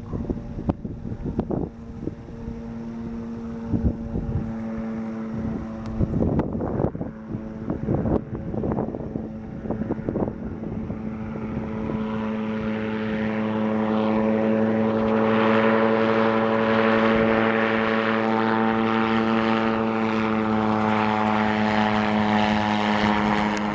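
Yamaha Genesis RX1 four-cylinder engine, converted from a snowmobile, driving the pusher propeller of a gyroplane in flight. It gives a steady, even drone that grows much louder in the second half as the gyroplane comes closer. Gusts of wind buffet the microphone in the first half.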